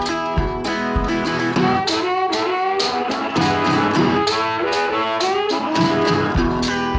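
Background music: an upbeat country-style tune with plucked guitar notes over a steady beat.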